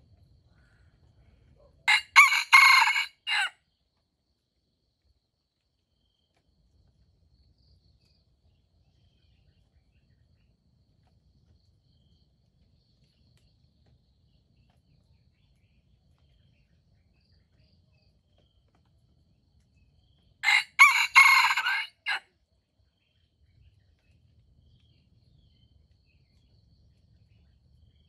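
Red junglefowl rooster crowing twice, each crow a short, broken call of about a second and a half, the second coming roughly eighteen seconds after the first.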